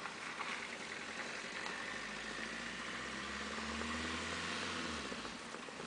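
Low steady hum of a motor vehicle's engine, swelling from about two seconds in and fading away near the end.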